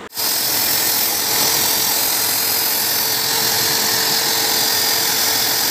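Pet blow dryer running at a steady speed: a loud rush of air with a constant motor hum, cutting in suddenly at the start and holding unchanged.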